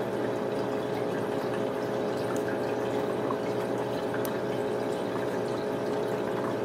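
Steady mechanical hum of a small motor running in the background, holding a constant pitch and level, with a few faint ticks from a knife tip scraping around the end of a copper tube.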